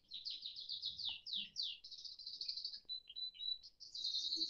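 A small songbird singing: a fast run of high chirping notes, about seven or eight a second, then scattered shorter notes and a brief steady whistle, and the song picks up again near the end.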